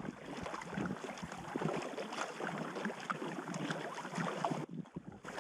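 Water splashing and dripping around a packraft being paddled on a river, a dense patter of small ticks that dips briefly near the end.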